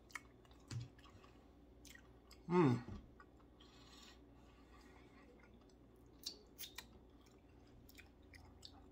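A man chewing a mouthful of steak, with soft scattered mouth clicks. About two and a half seconds in he gives a short hum that falls in pitch.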